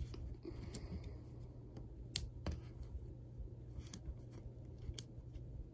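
Magnetic building blocks clicking against each other as they are handled and fitted together: a few scattered, faint clicks, two sharper ones about two and two-and-a-half seconds in.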